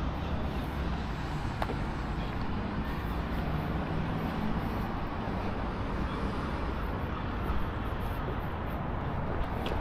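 Road traffic on a town street: a steady mix of engine hum and tyre noise from passing vehicles.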